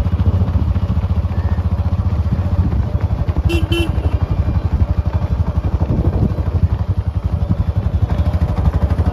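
Motorcycle engine running steadily at low speed, a dense, fast low throb, with two quick short beeps about three and a half seconds in.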